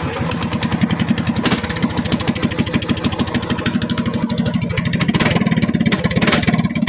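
Predator 212 single-cylinder four-stroke engine on a mini bike running steadily with rapid, even firing pulses, just after a start with the choke on.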